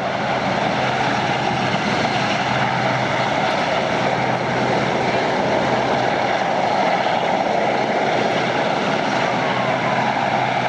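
Westland Sea King search-and-rescue helicopter hovering: a loud, steady noise of its rotors and turbine engines, with a steady low hum.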